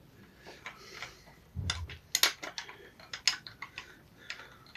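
Light metallic clinks and taps of hand tools and engine parts being handled, with a dull thump a little under two seconds in and a few sharp clicks after it.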